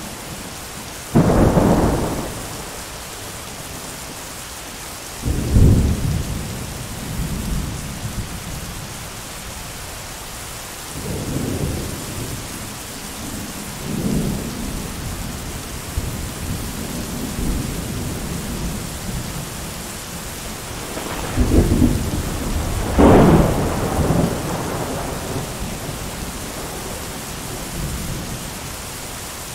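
Thunderstorm: steady rain with repeated thunder. Sharp claps come about a second in and around five seconds, softer rumbles around eleven and fourteen seconds, and the loudest claps around twenty-two to twenty-three seconds, each rolling off over a second or two.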